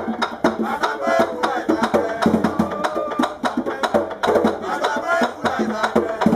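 Bèlè drum beaten by hand in a fast danmyé rhythm, with sharp wooden clicks and voices singing over it.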